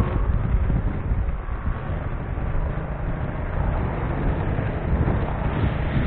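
Wind buffeting the microphone of a motorcycle-mounted camera while riding, over a steady low rumble of the moving motorcycle and road.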